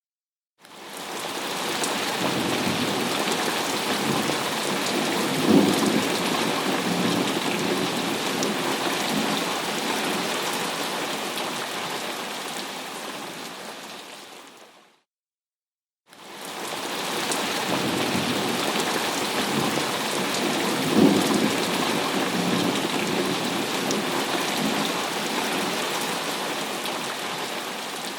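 Thunderstorm: steady heavy rain with a low thunder rumble swelling a few seconds in. The same stretch of recording plays twice, each time fading in, fading out and breaking off into a second of silence.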